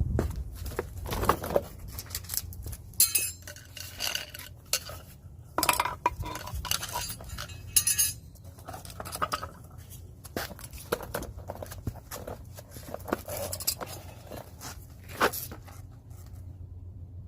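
Irregular metal clinks and clanks of drum brake springs and shoe hardware on a 1994 Ford F-150 being worked loose with a brake spring tool, some ringing briefly.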